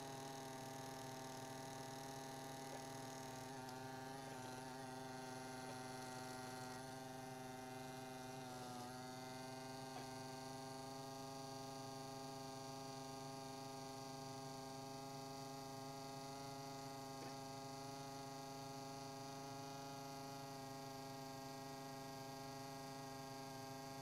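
Steady low electrical hum with an even series of overtones, unchanging in level.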